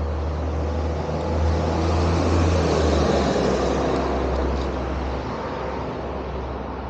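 A passing motor vehicle: a broad rushing noise that swells to a peak about two to three seconds in and then fades away.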